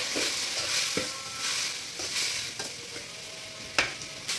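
Chopped tomatoes sizzling in oil in a stainless steel kadai while a metal spoon stirs them, scraping and knocking against the pan about once a second, the loudest knock near the end.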